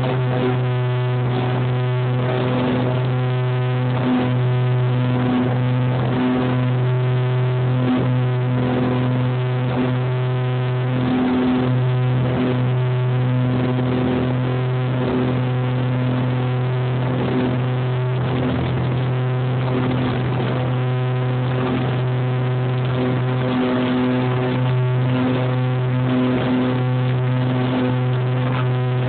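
Piper Chieftain's twin turbocharged Lycoming six-cylinder piston engines and propellers during takeoff, heard from inside the cabin: a loud, steady drone with a strong low hum and a stack of even tones above it.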